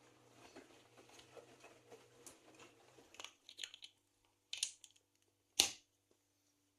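Handling noise from the recording phone: rustling and several clicks and knocks from about three seconds in, the loudest a single sharp knock near the end. Under the first half is the faint hum of the running washing machine.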